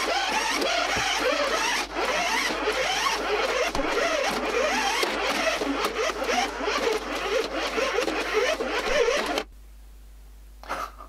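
Toy RC car's small electric drive motor and gears whirring, sped up fourfold, the pitch rising and falling again and again. It stops about nine and a half seconds in.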